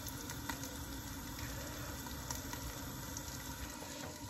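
Covered pan of masala aubergine gently sizzling and bubbling on a gas burner: a steady low hiss with a few faint pops.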